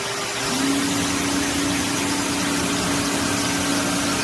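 Electric motor of air-conditioner cleaning equipment running steadily with a hum and a rushing hiss, its pitch rising and settling at a higher, steady note about half a second in.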